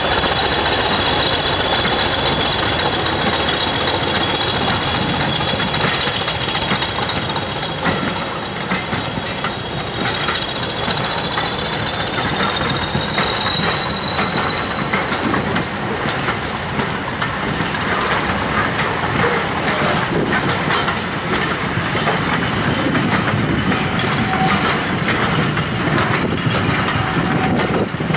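Train of carriages hauled by a Class 20 diesel locomotive rolling past, its English Electric eight-cylinder engine working under power. The coaches' wheels rumble and clatter steadily, and a high whistle climbs slowly in pitch as the train gathers speed.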